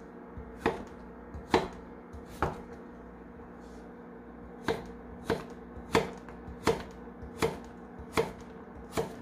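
Kitchen knife chopping a round squash on an end-grain wooden cutting board, about ten separate strokes knocking on the board: three about a second apart, a pause of about two seconds, then seven at a steadier pace of about three every two seconds.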